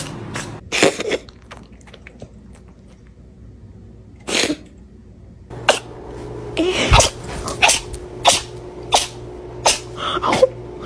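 A cat sneezing again and again in short, sharp sneezes. There are a couple at the start, a pause of about three seconds, then a run of sneezes coming roughly one every half second to a second.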